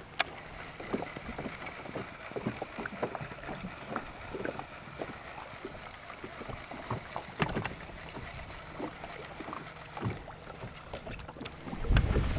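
Small waves lapping and ticking against a bass boat's hull, with a sharp click just after the start. A faint high chirp repeats about twice a second throughout, and wind rumbles on the microphone near the end.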